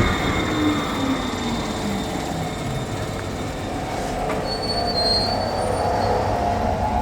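Railway train running on the track, a steady rumble with metal wheels squealing against the rails; a thin, high squeal rises over it about halfway through.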